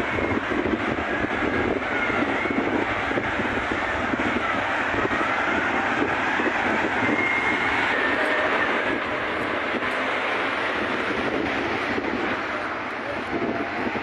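Bulldozers' diesel engines running in a steady, noisy din while they cut a firebreak through a burning wheat field.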